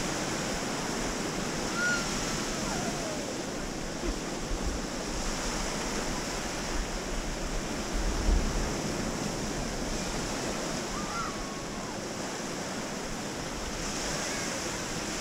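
Small waves of a calm sea washing onto a sandy beach, a steady surf hiss, with some low wind rumble on the microphone that swells briefly about halfway through.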